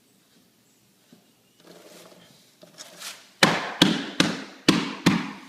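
Laminate flooring plank being knocked into place: five sharp knocks about half a second apart, after a short scrape.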